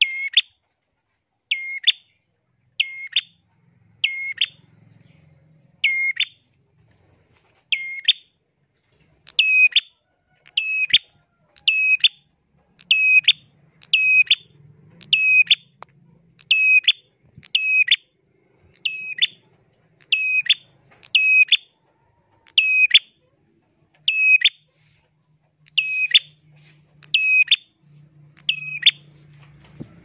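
A caged prenjak singing continuously, repeating a short, shrill, piercing chirp about once a second, now and then two in quick succession.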